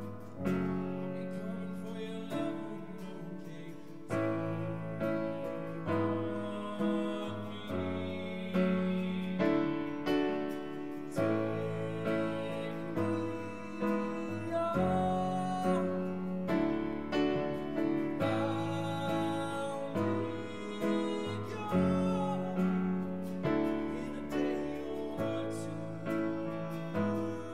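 A grand piano and an acoustic guitar playing a song together live, with chords struck in a steady pulse about once a second.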